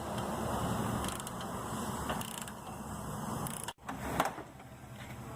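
Mechanic's hand tools working metal fasteners while a Nissan Hardbody's front control arm is unbolted: ratcheting and scraping, with a single metallic knock about four seconds in.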